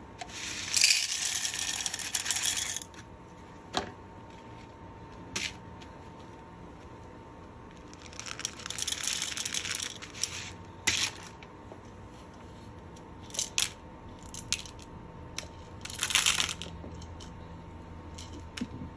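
Dry green coffee beans pouring and rattling into the plastic hopper of a RoastRite RM-800 moisture and density meter. They come in three rushes of one to two and a half seconds, near the start, about eight seconds in and about sixteen seconds in, with scattered clicks of single beans and the hopper between them.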